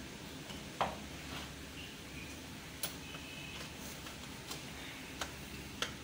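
Quiet room tone with a low hum, broken by four short, sharp clicks spread across the few seconds.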